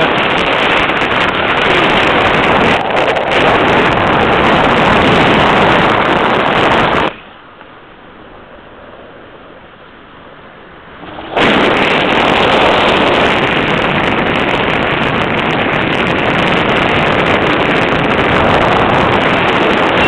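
Airflow buffeting the microphone of a handheld camera during paraglider flight: a loud, steady rushing noise that drops suddenly to a much quieter hiss about seven seconds in and comes back just as suddenly about four seconds later.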